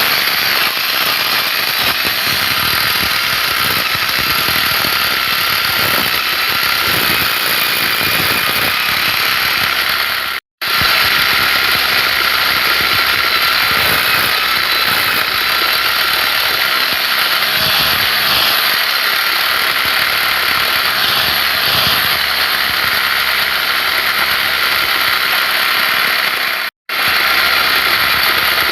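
A loud, steady mechanical whir of a motor running, cutting out abruptly twice for a split second.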